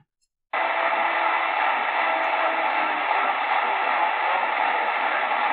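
Sony ICF-SW7600GR portable radio's speaker playing a weak daytime AM broadcast station, mostly static hiss with faint music underneath. The audio cuts out completely for about half a second at the start as the radio is stepped to the next frequency, then the station comes in.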